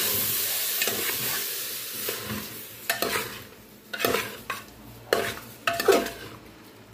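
Tripe and fried sausage being stirred in an oiled aluminium pressure cooker: sizzling in oil over the first couple of seconds, fading, then a utensil scraping against the pot several times, about once a second.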